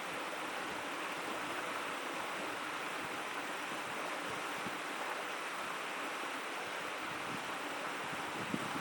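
Shallow stream babbling, a steady rush of running water with a few brighter gurgles near the end.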